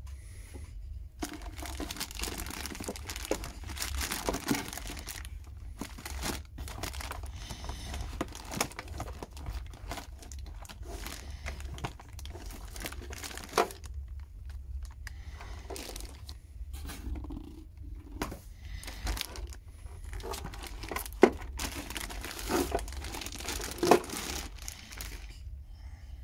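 Clear plastic bag around a Stihl AL 301 battery charger crinkling and rustling in long stretches as it is handled and pulled off, with a short pause partway through. A few sharp knocks stand out, the loudest near the end.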